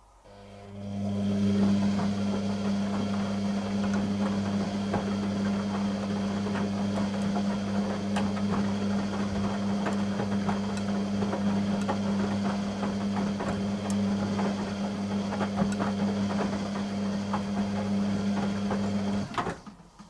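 Beko WTG620M1 washing machine running a stage of its cycle: a steady mains hum with water rushing and crackling, starting just after the beginning and cutting off suddenly near the end.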